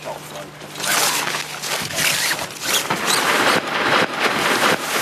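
Nylon tent fabric rustling and being handled as a tent is pitched, with the rasp of a zip; a run of irregular, hissy strokes that grows loud about a second in.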